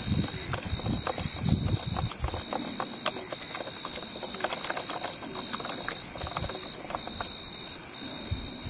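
Light, irregular clicks and taps of a makeshift stirrer against a cut-down plastic bottle as coffee is stirred by hand, with a few dull knocks in the first two seconds. A steady high-pitched insect chorus runs behind it.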